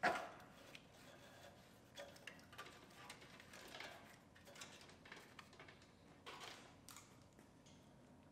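Faint clicks, knocks and rustling of a 2009 Ford Focus's plastic windshield washer fluid bottle and its filler neck being worked free by hand, with one louder click right at the start.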